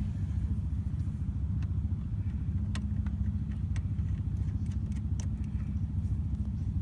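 A car engine idling steadily, a low even rumble, with a few faint clicks.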